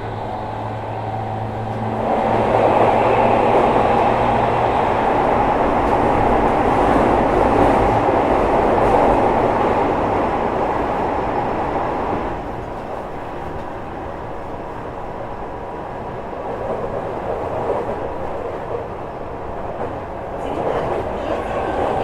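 Tokyu 5000 series electric train running, heard from inside the car: steady wheel-on-rail rumble with a low steady hum at first. The running noise grows louder about two seconds in and eases off about twelve seconds in.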